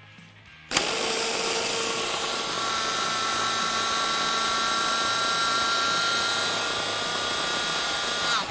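Electric food processor motor switched on under a second in, running steadily for about seven and a half seconds as it grinds a crumbly mixture with butter. Its whine climbs slightly, then winds down as it is switched off near the end.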